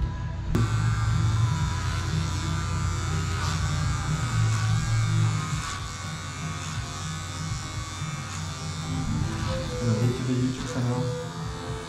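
Electric hair clipper with a comb guard buzzing steadily as it cuts the hair on the side of a man's head. It switches on suddenly about half a second in.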